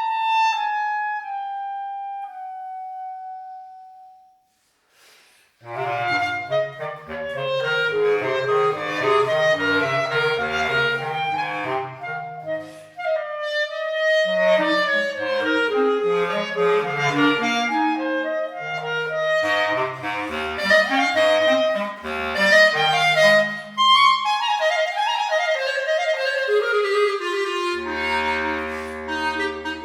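Clarinet playing a melody with accompaniment: a long held note glides downward and fades out, and after a short pause a quick, ornamented line starts up over low accompanying chords, ending on held notes.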